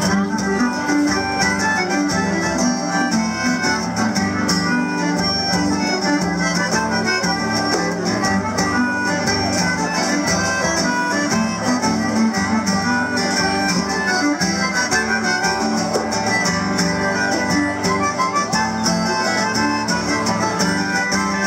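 Live Irish dance tune played on concertina, fiddle and acoustic guitar, going steadily throughout.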